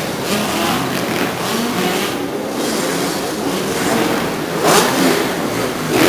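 Several motocross bikes running and revving on a sand supercross track, their engine notes rising and falling as the riders take the jumps. One bike surges louder a little before the five-second mark.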